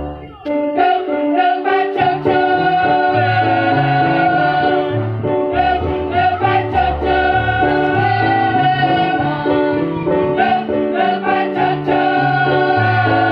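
A choir singing a hymn-like song with instrumental accompaniment and a steady bass line. There is a brief drop in the music about half a second in, then it carries on.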